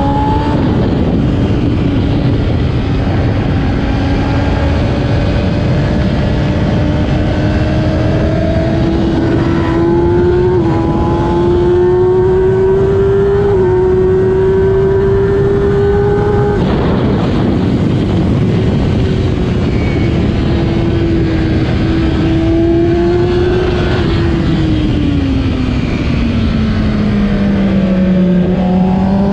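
2008 Kawasaki ZX-10R superbike's inline-four engine running hard at racing speed, its pitch climbing slowly with a couple of small steps. About three quarters of the way through, the revs fall a long way as the bike slows for a corner, then rise again near the end. A steady rush of wind noise sits under the engine.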